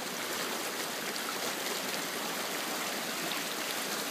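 A small woodland creek running: a steady rush of flowing water.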